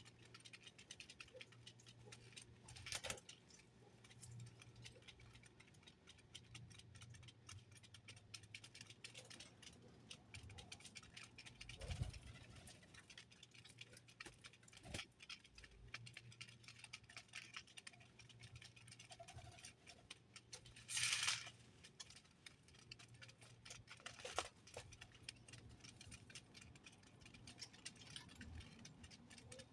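Small birds pecking and hopping about a feeder: faint scattered ticks and taps, with a brief louder rustle about two-thirds of the way through, over a faint steady low hum.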